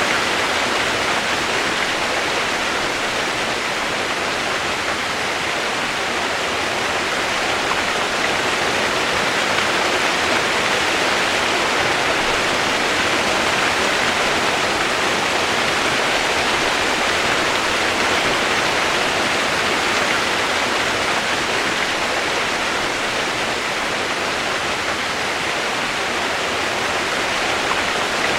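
Steady, even rain noise, a constant hiss with no separate drops, thunder or changes.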